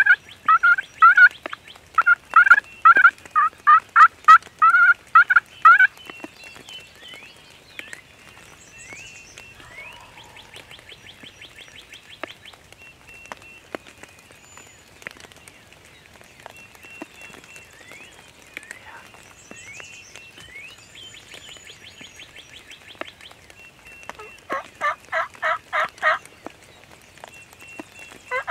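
Turkey calling: a long run of loud, evenly spaced notes over the first six seconds, then faint songbird chirps, then another quick run of loud turkey notes near the end.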